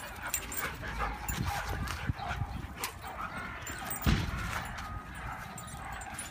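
Siberian huskies giving short barks and yips while they chase and play, with scuffling and a louder thump about four seconds in.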